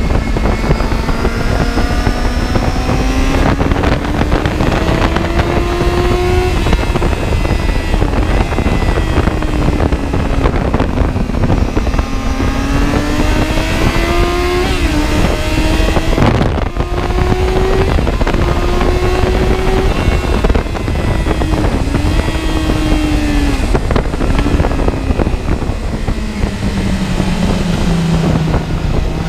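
A vehicle engine running hard, its pitch climbing steadily and then dropping several times as it accelerates and changes gear, with wind rushing over the microphone.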